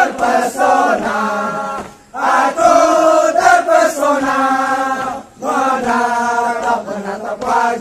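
A group of men chanting a Scout yel-yel cheer in unison, in sung phrases broken by two short pauses about two and five seconds in.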